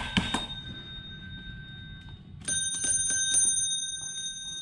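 Table tennis ball clicking off paddle and table in quick runs, near the start and again about two and a half seconds in. Over it, a steady high bell-like ringing holds, brightening about two and a half seconds in.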